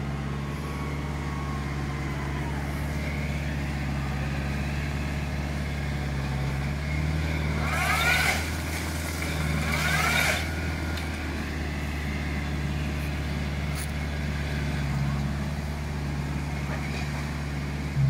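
Tractor engine running steadily while powering a Hasatsan H 4000 tree shaker clamped to a walnut trunk. About seven seconds in, the engine comes under load, and two short, loud shaking bursts with a rising whine follow about two seconds apart.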